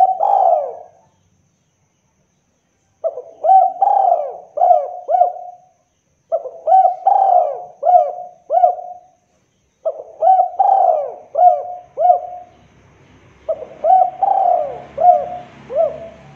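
Spotted dove cooing: the tail of one phrase at the start, then four phrases of about five coos each, spaced a few seconds apart.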